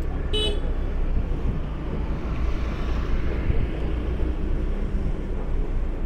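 Steady low rumble of a slow-moving vehicle with wind on the microphone, and a short horn toot about half a second in.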